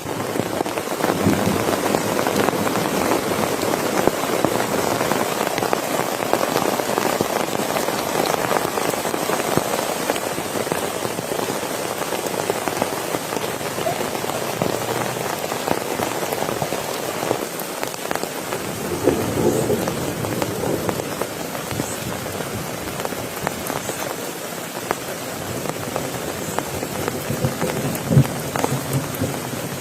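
Steady rain falling on a surface, thick with the ticks of single drops, with a few brief louder low swells.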